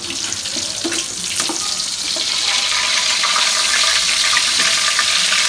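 Marinated chicken pieces half-frying in hot cooking oil in a pan: a dense, steady sizzle that grows a little louder toward the end.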